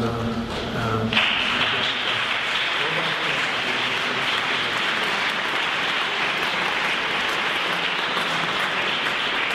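An audience applauding, breaking out about a second in just as a man's voice stops, then keeping up steadily.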